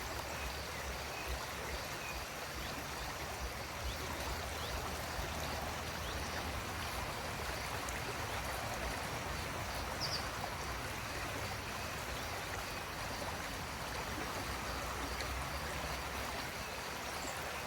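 A shallow river running steadily, a continuous even rush of flowing water.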